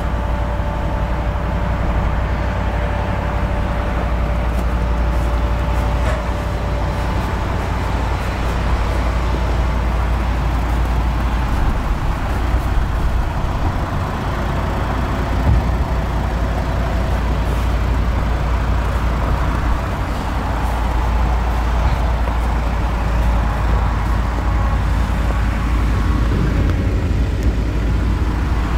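Volkswagen Caravelle T6's 2.0 TDI inline-four diesel idling steadily.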